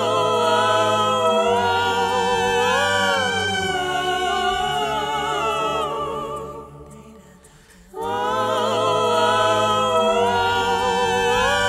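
A woman's voice singing long, held notes with vibrato, layered in harmony over a low steady note, in two sustained phrases: the first fades out about six seconds in, and the second starts about two seconds later.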